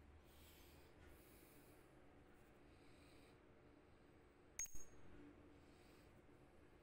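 Steel drill-chuck parts handled as the jaws are fitted into the chuck shell: one sharp, ringing metal clink about two-thirds of the way through, otherwise only faint handling noise.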